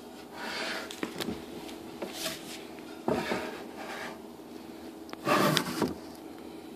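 Handling noises from a heavy archaic bronze vessel being moved and tipped on a sheet of paper over a wooden table: a few short scrapes and rubs with light knocks, the longest and loudest scrape near the end.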